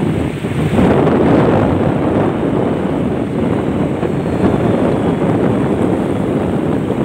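Wind buffeting the microphone in a steady rumble, over the wash of surf breaking on the beach.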